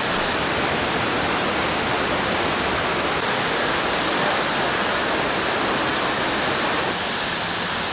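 Rocky mountain stream rushing steadily over boulders, a dense even hiss of flowing water.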